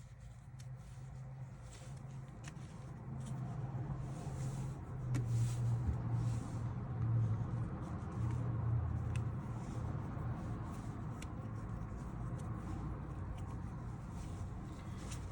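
Quiet handling of small power steering pump parts on a workbench: scattered light clicks and taps over a low steady hum.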